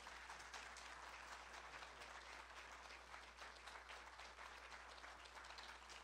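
Audience applauding, a faint, steady patter of many hands clapping.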